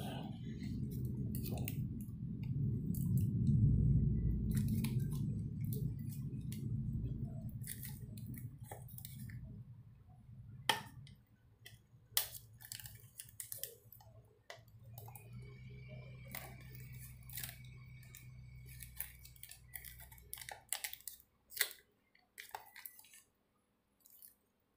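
Small clicks and rattles of a transparent plastic USB 3 hard-drive enclosure being handled and worked open, with a low rumble of handling noise through the first ten seconds or so that later drops to a quieter rumble.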